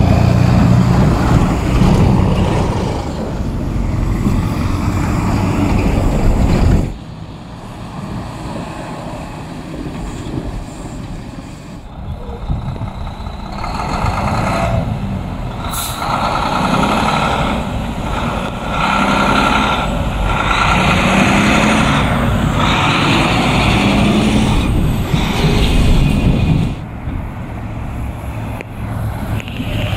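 Heavy diesel dump trucks hauling snow drive past on a city street, their engines and tyres running loud. The sound drops sharply about seven seconds in, and a passing truck builds up again from about thirteen seconds.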